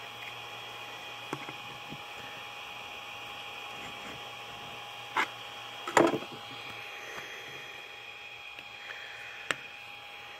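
A flat scraper working a freshly printed TPU gasket loose from a 3D printer's bed: a few sharp scrapes and clicks, the loudest a short ragged scrape about six seconds in, over a steady whine and hiss.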